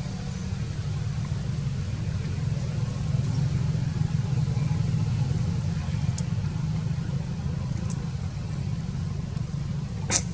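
Steady low rumble throughout, with a few faint ticks and one sharp click near the end.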